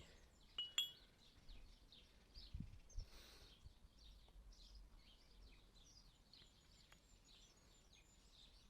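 Near silence with faint birds chirping throughout, and a few light knocks in the first three seconds.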